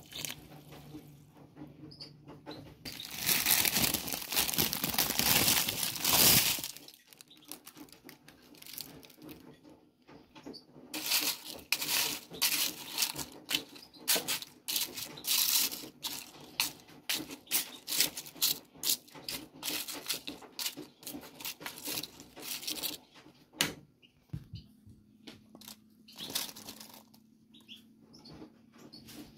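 Water poured into a metal pot of meat, a loud steady splash lasting a few seconds, then a long run of rapid crackling and rustling as greens and onions are handled and dropped into the pot.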